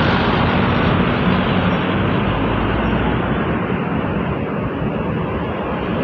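Tour buses driving past close by, their engines and tyres making a steady traffic noise, with no horn sounding.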